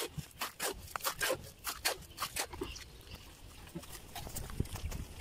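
Footsteps of a man walking in sandals while carrying a bucket: a quick run of crisp steps over the first couple of seconds, then softer, rustling steps through dry grass.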